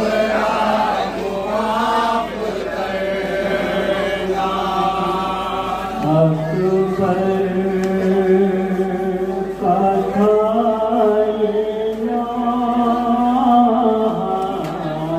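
Men chanting a noha, a Shia mourning lament: a lead reciter sings long, held lines into a microphone, with other men's voices joining in.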